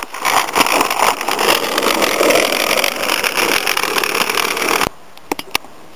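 Skateboard wheels rolling over rough asphalt, a steady rolling rumble with a few knocks of the board in the first second. It cuts off suddenly about five seconds in, leaving a few faint clicks.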